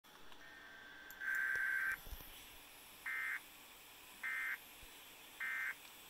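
Emergency Alert System SAME data bursts for a Required Weekly Test, played through a television's speaker. First comes one longer burst, then three short identical bursts about a second apart. The three short bursts match the length of the end-of-message signal.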